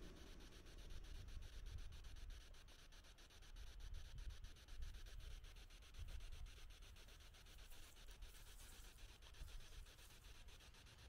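Near silence: a faint, uneven low rumble under a faint steady hiss.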